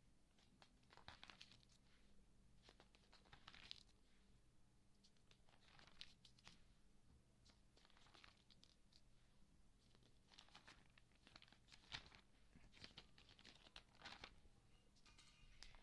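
Faint rustling of glossy magazine pages being turned and pressed flat by hand: a crisp paper rustle every second or two.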